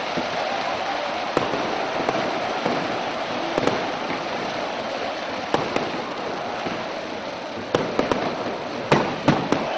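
Fireworks going off in a stadium over the steady noise of a large crowd: single sharp bangs every second or two, then several in quick succession near the end.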